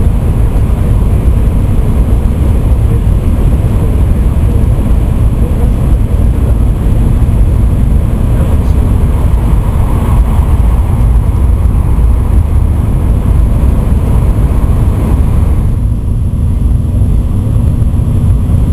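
Cabin noise of an N700-series Shinkansen running at speed through a tunnel: a loud, steady rumble with a hiss on top. Near the end the hiss eases and a low hum comes in as the train nears the tunnel mouth.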